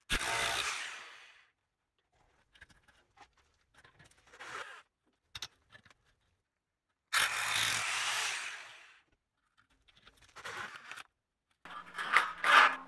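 Rotary hammer drilling through a metal floor track into the concrete slab in two short runs, one at the start and one about seven seconds in, each dying away as the trigger is released. Light metallic taps and clicks come between them, and a quick run of sharp metal clicks near the end as the track is worked with pliers.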